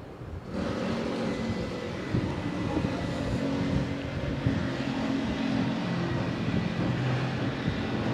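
Street traffic noise with a vehicle engine running, starting abruptly about half a second in.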